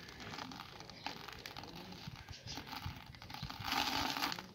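Ammonium nitrate fertilizer granules pattering and rattling as a hand scoops them from a plastic bucket and lets them trickle back in, with a louder spill about three and a half seconds in.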